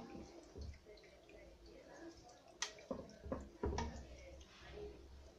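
Kitchen tongs clicking and knocking faintly against a pan as marinated anchovies are laid into tomato sauce. The sharpest click comes about two and a half seconds in, followed by a few quick knocks.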